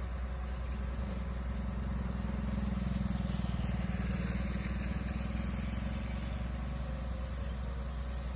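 Komatsu excavator's diesel engine running steadily under work, its low rumble rising a little for a few seconds in the middle.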